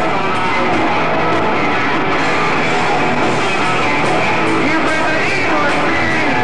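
Rock band playing live, loud and steady, with an electric guitar lead bending notes up and down over the drums and bass.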